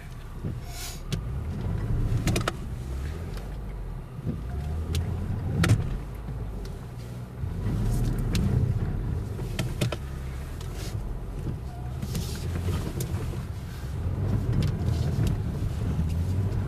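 A car engine running as the car works its way through deep snow, its low rumble swelling and easing, with a few sharp knocks and clicks.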